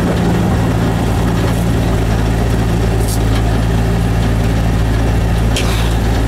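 Rally car's engine idling steadily at low speed, heard from inside the cabin, with two brief clicks.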